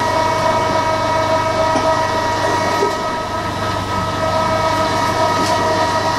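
Small electric kitchen appliance motor switching on and running steadily, a whining hum of several fixed tones over a rushing noise.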